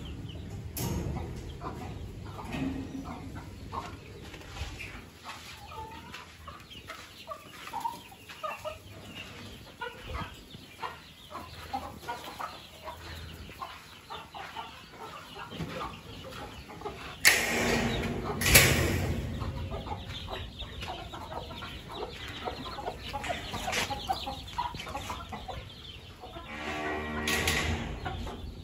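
A flock of country chickens clucking and calling on and off. Two loud sudden sounds come about two-thirds of the way in, and a rooster crows near the end.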